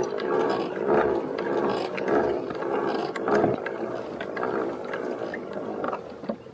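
Pedal drive of a Perception Pescador Pilot kayak being pedalled: a geared mechanical whir with clicks that swells about once a second with each pedal stroke, stopping shortly before the end.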